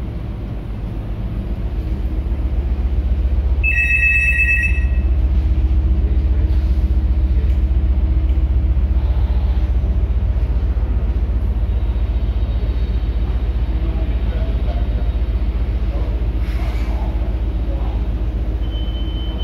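Steady low rumble and vibration of a container ship's machinery under way, heard inside the wheelhouse. A short electronic beep sounds for about a second around four seconds in.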